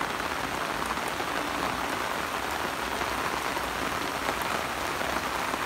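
Heavy rain falling steadily on standing floodwater and wet vegetation, an even, unbroken patter.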